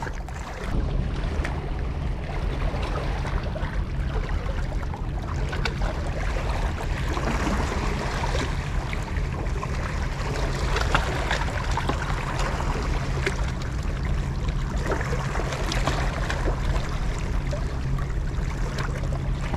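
Sea water washing against the shoreline rocks, with a steady low hum underneath and scattered faint clicks.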